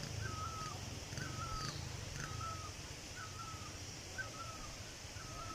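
A bird repeating the same short, hooked call about once a second, faint, over a low steady rumble.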